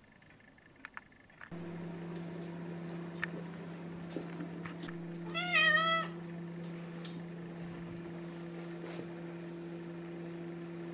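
A domestic cat meows once, a short call of about half a second that dips and rises in pitch, over a steady low hum that begins about a second and a half in.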